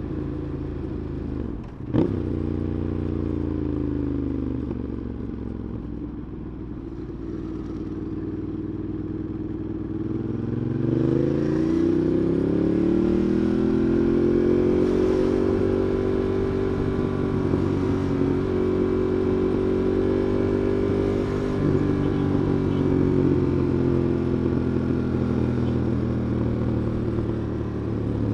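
Ducati Monster 821's V-twin engine running on the move. A sharp click comes about two seconds in, and the engine note falls as the bike slows. From about ten seconds the note rises as it accelerates, then holds steady at higher revs.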